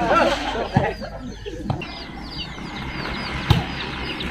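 Birds chirping over and over in short high calls, with a few sharp thuds of a volleyball being hit. The loudest thud comes about three and a half seconds in.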